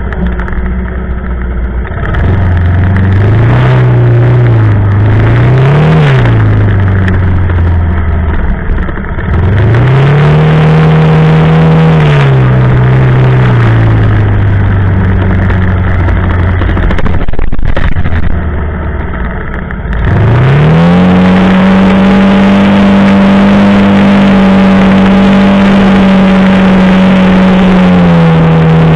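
Quad bike (ATV) engine under a rider, speeding up and easing off over rough ground. It climbs in revs near the start and again partway through, then rises to a steady high-revving run for the last third.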